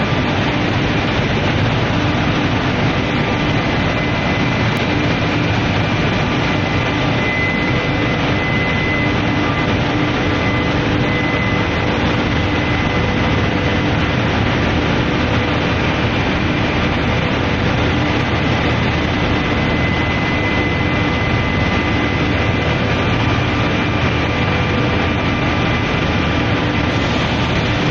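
Induction quenching and tempering line for metal bars running: a steady, loud machine noise with several steady tones running through it, unchanging throughout.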